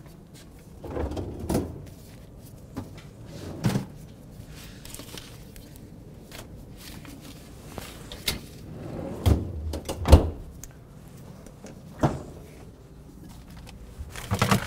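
Kitchen knocks and thumps, about eight separate ones spread out, from cupboard or drawer doors and a refrigerator door being opened and closed.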